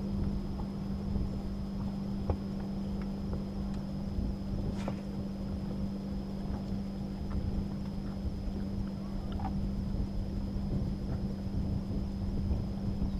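Boat motor running steadily: a constant low hum with a faint high whine above it, and a few light ticks here and there.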